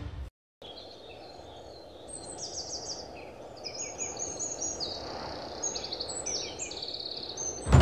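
Several birds chirping and giving short rapid trills over a low, steady outdoor background noise.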